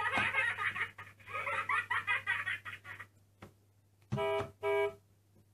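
Fisher-Price Little People toy car's electronic sound unit, set off by pressing the driver figure's head: a tinny electronic jingle for about three seconds, then two short horn beeps a little after four seconds in.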